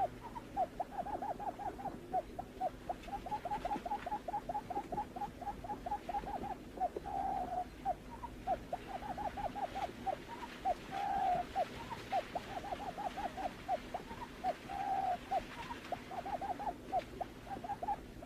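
Barred buttonquail calling: runs of short notes repeated several times a second, broken every few seconds by a longer hooting note.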